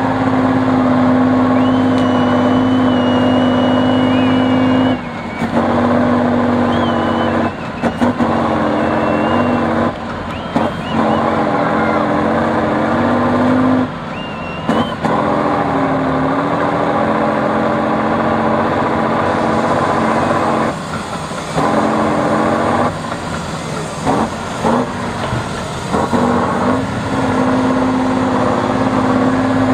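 Diesel engine of a heavy all-wheel-drive trial truck running hard at high revs under heavy load as the truck climbs a steep dirt slope. The engine note dips and picks up again several times as the revs fall and recover.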